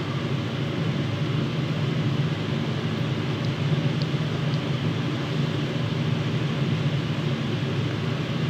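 Steady low rumble with a hiss over it, unchanging throughout.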